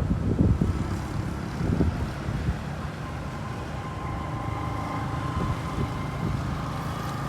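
Road traffic: a motor vehicle running steadily as it passes, with a steady whine from about three seconds in.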